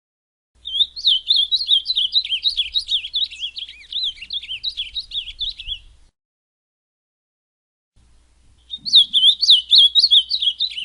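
Ultramarine grosbeak (azulão) singing: a long, fast run of warbled, up-and-down whistled notes, then a silence of about three seconds, and a second phrase starting near the end.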